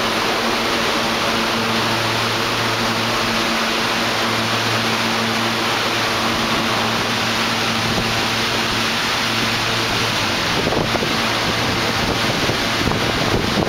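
An R160A subway train stands at the platform with its doors open, giving a steady hum and hiss from its idling equipment, with a brief clatter about eleven seconds in.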